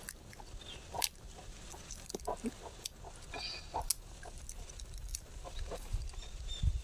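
Brittle shells of ripe tamarind pods cracking and crackling as they are peeled by hand, a scatter of irregular sharp clicks.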